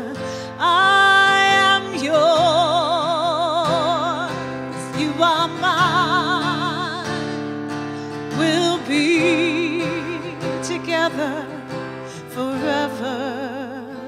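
A woman singing a slow worship song, holding long notes with vibrato, to her own strummed acoustic guitar.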